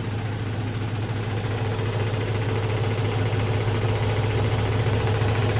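Kenworth semi truck's diesel engine idling steadily, with no hiss of escaping air from the purge valve or brake lines, so the new purge valve is holding.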